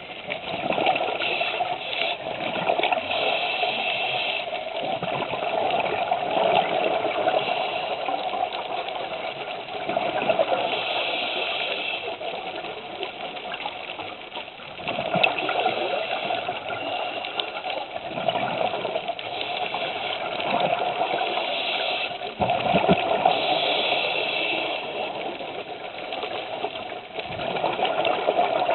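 Scuba diver's regulator breathing heard underwater: hissing inhalations and bubbling exhaust, swelling every few seconds with each breath.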